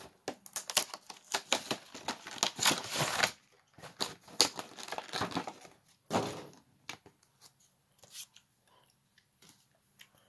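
Pokémon card collection box being opened and its clear plastic blister tray crinkled and handled: a dense run of crackling and rustling for about three seconds, then scattered crinkles and light taps that thin out.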